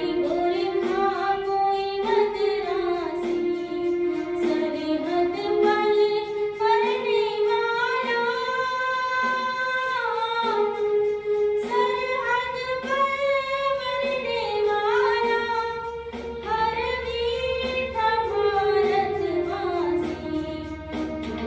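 A female voice singing a slow melody of long held notes that glide between pitches, over instrumental accompaniment.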